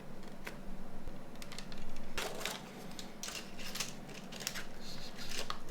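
Small plastic and metal parts of a Nokia 9210 communicator's hinge mechanism being handled and fitted: irregular light clicks and short scrapes, coming in clusters.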